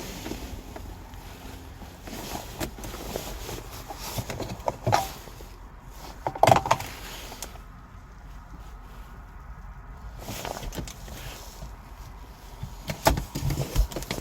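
Irregular clicks, knocks and rustling of a car's interior being handled, loudest about five, six and a half and thirteen seconds in.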